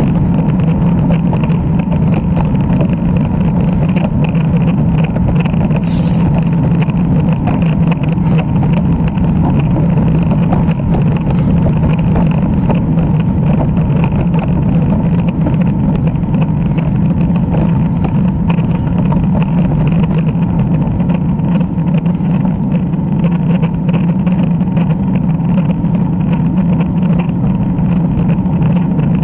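Steady rumbling wind and road noise from riding a road bike, at an even level throughout.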